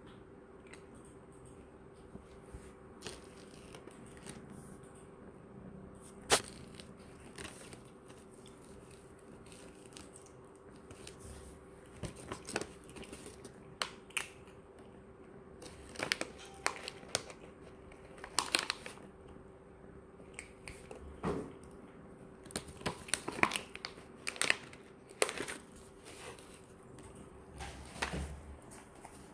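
Cats crunching dry food: scattered short crunches and crackles, sparse at first and more frequent in the second half, over a faint steady hum.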